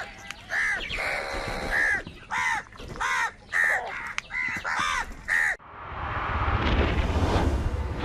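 Crow cawing in a quick series of about nine harsh caws. The cawing cuts off suddenly about five and a half seconds in, and a steady rushing noise takes over.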